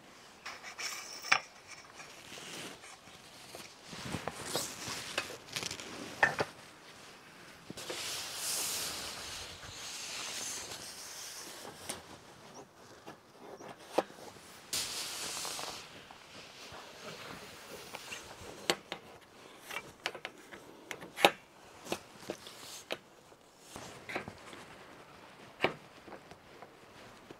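Vehicle side awning being set up by hand: the fabric rustles and swishes as it is pulled out, with several sharp clicks and knocks from the metal support poles and fittings being handled and locked.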